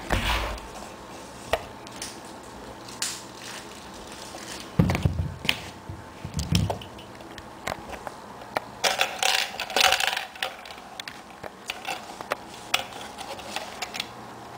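Plastic packaging and a plastic clock being handled: crinkling and scattered clicks, a couple of low knocks about five and six and a half seconds in, and a longer burst of crinkling about nine to ten seconds in.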